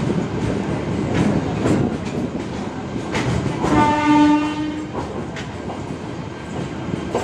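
A train horn sounds once about halfway through, one steady note lasting about a second, over a steady rumble of the train with scattered knocks and clatter.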